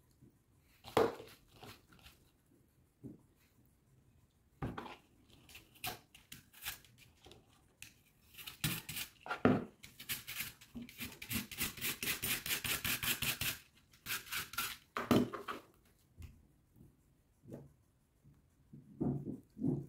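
Y-shaped vegetable peeler scraping the skin off an apple in a rapid run of strokes midway, among scattered clicks and knocks of utensils and fruit handled on a plastic cutting board.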